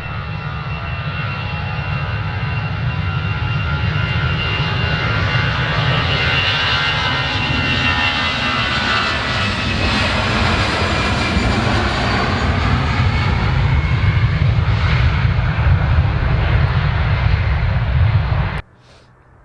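Jet airliner engines running loud as the aircraft passes close, a deep rumble under a whine whose pitch falls as it goes by. The sound cuts off abruptly about a second before the end.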